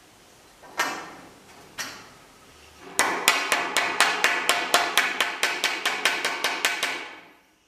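A soft-faced mallet tapping a metal end fitting onto a drive shaft tube: two single knocks, then a quick run of taps about five a second that stops suddenly.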